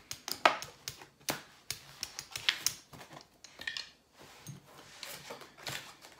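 Playing cards and casino chips being handled on a felt blackjack table: a bust hand is swept up and dropped into the discard holder, and new cards are dealt. The handling makes a run of short, sharp, irregular clicks and taps.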